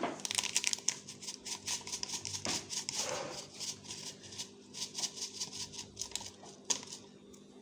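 Rapid, irregular light clicks and taps of kitchen utensils and packaging being handled while fried rice is cooked, over a faint steady hum.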